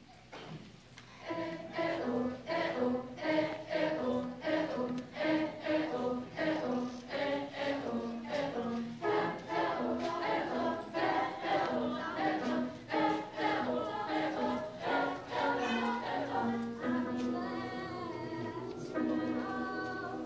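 Middle school choir singing, the choir voicing the accompaniment: short, rhythmic repeated vocal notes start about a second in, giving way to longer held chords near the end.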